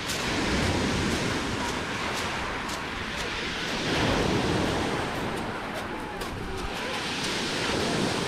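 Small waves washing onto a small-pebble beach, the wash swelling and easing about every three to four seconds, with a few light clicks of pebbles.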